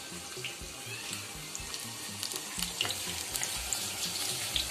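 Marinated, sesame-coated chicken pieces deep-frying in hot oil in a steel kadai: a steady hiss of bubbling oil with scattered small crackles.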